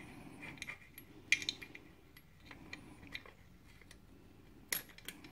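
Light metallic clicks and clinks of a scriber and pliers against a steel washer and bolt as the washer is worked into place, with two louder clinks about a second in and near the end.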